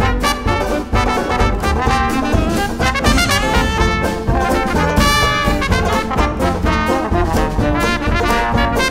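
Small hot-jazz band playing in ensemble: trumpet and trombone to the fore over piano, banjo and double bass, with a steady beat.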